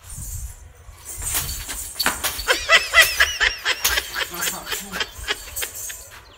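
Scuffs, taps and sandal slaps on a concrete floor as people dodge and shuffle around a swinging straw broom. About two and a half seconds in comes a quick run of high, squeaky notes, about six a second, lasting just over a second.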